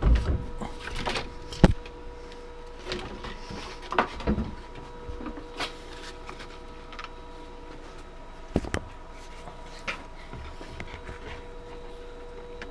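Belt change on a KMG belt grinder: scattered knocks and clicks as the abrasive belt is pulled off and a new one is fitted over the wheels, with two sharp knocks standing out. A steady hum runs underneath.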